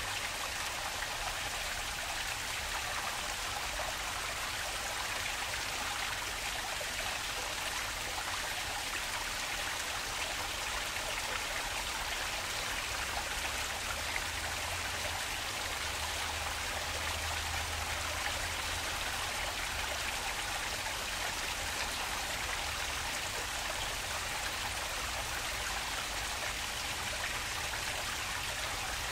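Stream water flowing steadily over rocks, an even rushing with a light patter of drops.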